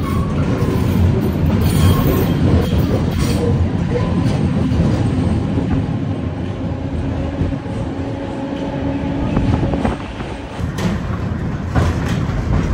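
Historic tram running along its track, heard from on board: a steady rumble of steel wheels on rails with a faint steady hum and scattered clicks, easing slightly about ten seconds in.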